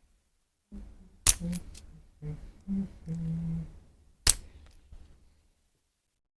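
Two sharp cracks about three seconds apart: joints popping under a chiropractic adjustment, with a couple of small clicks after the first. Between the cracks come brief low hums of a voice.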